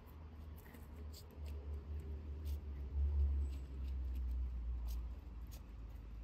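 Stray cats eating wet food from paper plates, with faint scattered chewing clicks, over a low rumble that swells about a second and a half in and eases after the middle.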